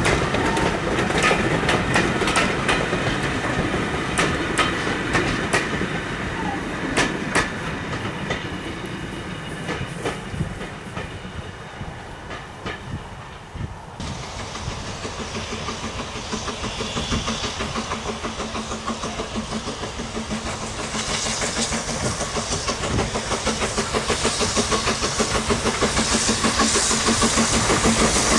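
Wheels of a passing train of coaches clicking over the rail joints, the clicks thinning out and fading away over the first half. From about halfway a BR Standard 'Britannia' class steam locomotive approaches, with steam hissing and a regular beat growing steadily louder toward the end.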